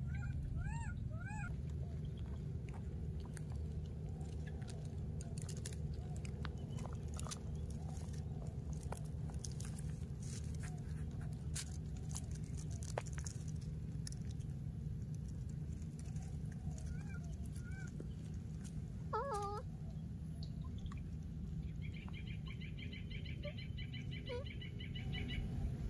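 Baby monkeys giving a few short squeaky calls, bending up and down in pitch, near the start and again about two-thirds of the way in, over a steady low rumble. Near the end a rapid high-pitched trill runs for a few seconds.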